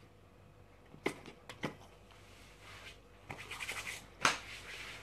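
Close-up chewing and mouth sounds of someone eating with a full mouth: scattered sharp clicks, a short raspy stretch of fast scratchy crunching about three seconds in, and a louder sharp click just after four seconds.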